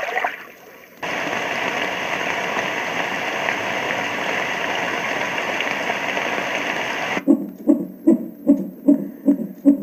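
White noise machine playing a steady rushing hiss for about six seconds, then switching to another of its preset sounds: an even rhythmic chugging pulse, about two and a half beats a second, which she takes for a train.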